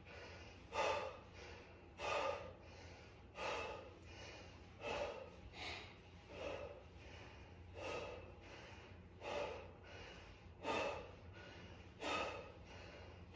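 A man's hard, sharp breaths out, one with each rep of bicycle crunches, coming about every second and a half.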